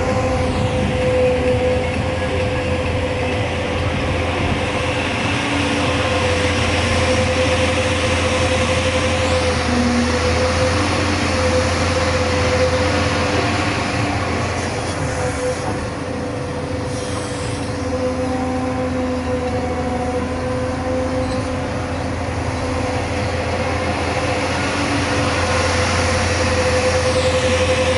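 JCB excavator's diesel engine and hydraulics running steadily under load while digging, with a constant high whine over the engine's rumble.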